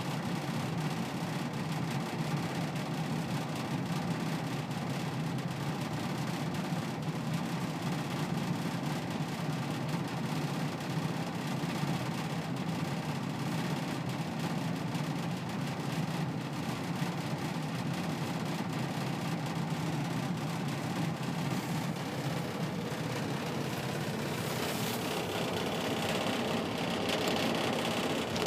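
Forced-air furnace running with a steady low hum, with a hiss that grows louder about three-quarters of the way through.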